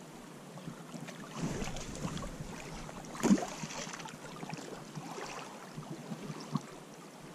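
River water running and rippling along a gravel shore, with wind on the microphone and a few light knocks, the loudest about three seconds in.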